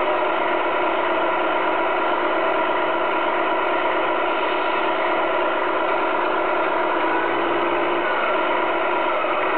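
1/14-scale Tamiya Scania R620 radio-controlled truck running, giving a steady engine-like drone made of several held tones. There is a slight shift in pitch near the end.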